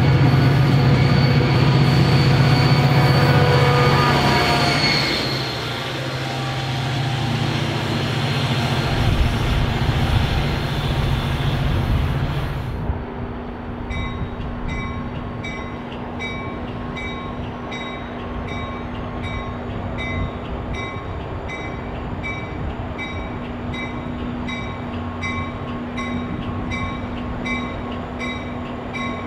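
A diesel-hauled NJ Transit passenger train running past, its engine drone low and steady and its wheels squealing on the rails. About thirteen seconds in the sound changes abruptly to a second, slower train drawing in with a steady engine hum and its bell ringing evenly, about one and a half strikes a second.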